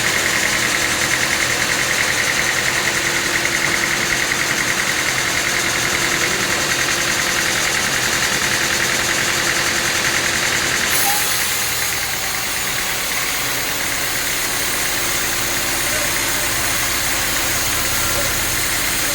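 Sawmill machinery running steadily: an engine-like drone with a fast even pulse. About eleven seconds in the sound changes, a high ringing band dropping away.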